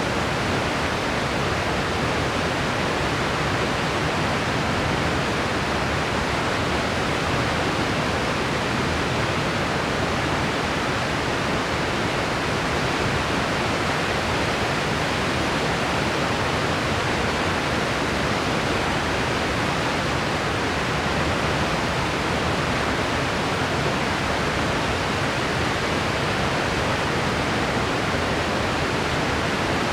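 Steady white noise: an even, unchanging hiss with no rise or fall in level.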